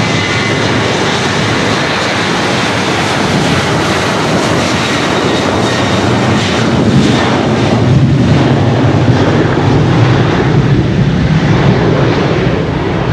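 Boeing 737-800 jet airliner's two CFM56-7B turbofan engines running at takeoff power during the takeoff roll. Loud, steady jet noise that grows a little louder about eight seconds in as the airliner accelerates past and away.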